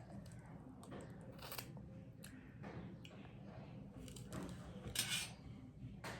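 Close-miked eating sounds of Korean noodles: chewing with scattered small clicks, and a brief louder hiss about five seconds in.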